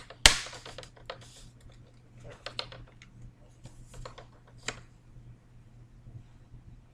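Plastic clicking and snapping as a laptop's screen bezel is pried off by hand, its clips letting go: one sharp snap just after the start, then scattered lighter clicks.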